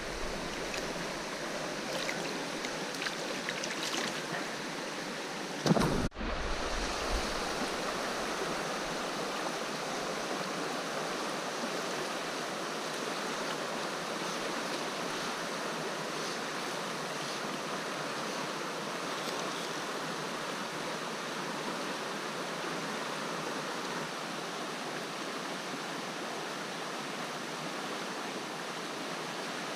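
River water rushing steadily, with a brief break and a knock about six seconds in.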